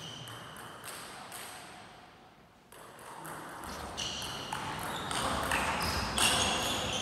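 Table tennis ball clicking off the rackets and the table: a few hits in the first second, a quiet gap, then a rally from about three seconds in, with the hits coming faster and louder toward the end.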